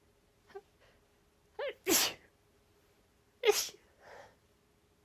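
A woman sneezing twice during a sneezing fit. About a second and a half in there is a short sharp breath catch with a rising voiced 'ah' build-up, then an open sneeze. A second sneeze comes near the end with a softer breathy tail.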